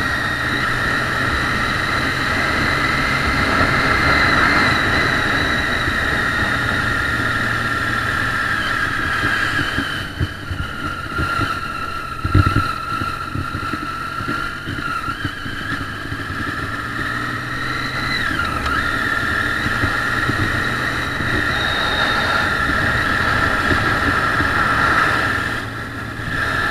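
Triumph Street Triple motorcycle's three-cylinder engine running as the bike rides along at road speed, mixed with road and wind noise. The sound drops about ten seconds in, the engine note shifts in pitch, and it builds again later.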